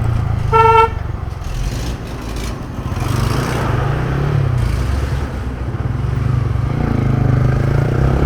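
Motorcycle engine running while riding in traffic, its pitch rising and falling with the throttle. A vehicle horn honks once, briefly and loudly, about half a second in.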